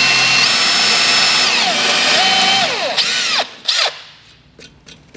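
Makita 18V cordless drill running a high-speed steel bit into a broken steel bolt, opening the pilot hole up a millimetre for a larger easy out. Its whine drops in pitch partway through and it stops about three seconds in, with a couple of short spin-ups and spin-downs, then light clicks as it is lifted away.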